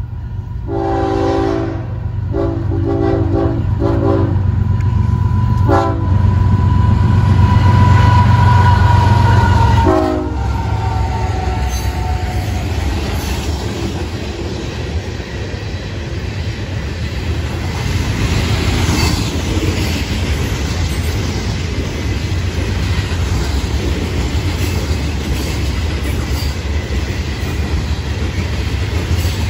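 Florida East Coast freight train passing: the lead diesel locomotives sound their horn in a series of blasts over the first ten seconds, one long followed by several short, over a heavy engine rumble. After about ten seconds the rumble drops and loaded rock hopper cars roll by steadily, with clickety-clack from the wheels on the rails.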